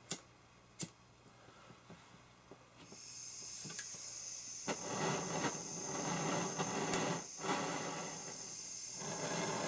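A few light clicks and taps, then about three seconds in a steady rushing hiss of blowing air starts and carries on.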